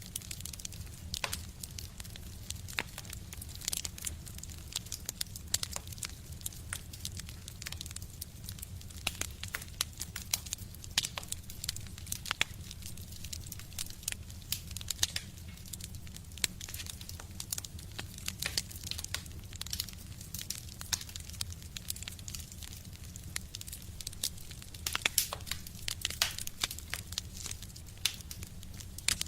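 A fire burning in a stove, crackling with many irregular sharp pops and snaps over a low steady rumble.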